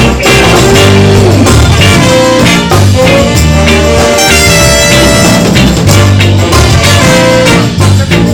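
Reggae band playing an instrumental passage of a song, with a steady beat and bass under held instrument notes.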